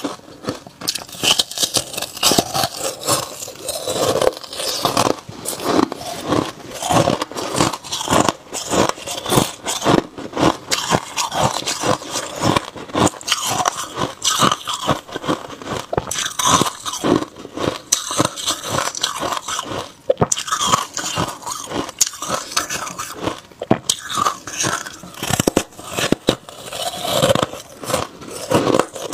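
Hard white ice being bitten and chewed, giving rapid, irregular crunches one after another with hardly a pause.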